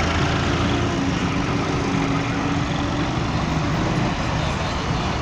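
Massey Ferguson tractor's diesel engine running steadily under load as it hauls a heavily loaded sugarcane trolley toward the microphone.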